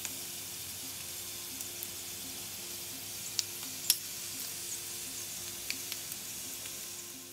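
Masala-coated prawns frying in a pan, a steady sizzle with a few sharp pops and crackles, the loudest a little before four seconds in. The sizzle fades near the end.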